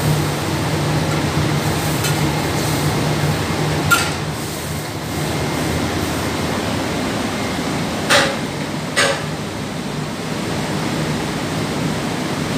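Steel ladle clanking against a large steel wok: once about four seconds in, then twice about a second apart near the middle, the last two with a short metallic ring. Under it runs a steady hum and rushing noise.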